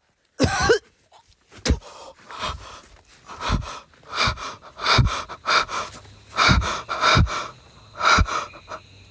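A man breathing hard and fast, panting in short gusts of breath that buffet the microphone.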